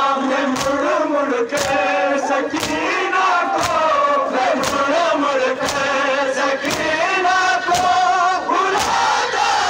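Large crowd of men chanting a noha (Shia mourning lament) in unison, with a sharp slap of chest-beating (matam) about once a second, keeping the beat.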